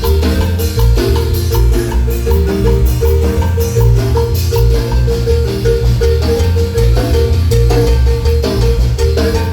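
Marimba ensemble playing music: quick runs of struck mallet notes over a heavy, steady bass line.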